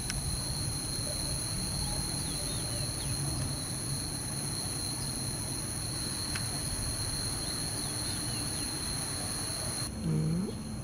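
Steady, high-pitched insect chorus droning at a constant pitch over a low outdoor rumble. A short low gliding sound comes near the end.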